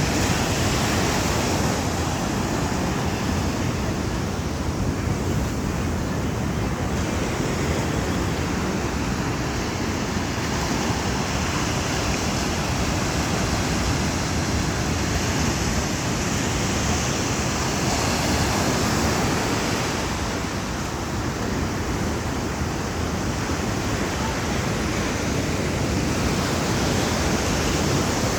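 Sea surf washing onto a beach, a steady rush of noise that swells and eases, with wind rumbling on the microphone.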